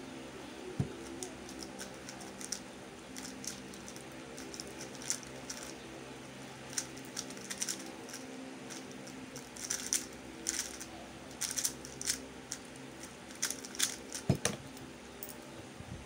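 MF3RS2 3x3 speedcube being turned fast, its plastic layers clicking in quick, irregular clusters that grow busier in the second half, with a thump near the end as the cube is set down. A steady electric-fan hum runs underneath.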